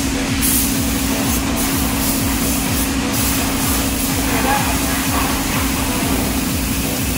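Air-fed paint spray gun hissing steadily as it sprays paint onto the steel stabiliser leg of a JCB backhoe, over a constant low mechanical hum.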